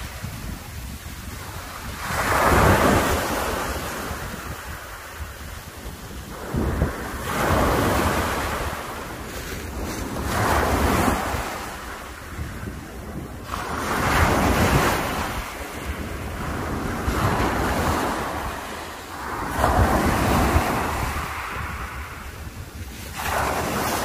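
Small sea waves breaking and washing up a pebble beach, surging in and drawing back about seven times, every few seconds. A low rumble of wind on the microphone runs under it.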